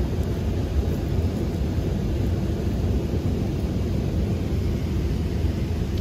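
Steady low rumbling outdoor background noise with no distinct events, the kind wind makes buffeting a microphone.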